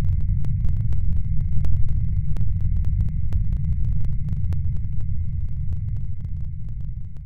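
Muffled low rumble of sea water heard through a camcorder filming in the surf and underwater, with scattered crackling clicks and a thin steady high whine; it slowly fades toward the end.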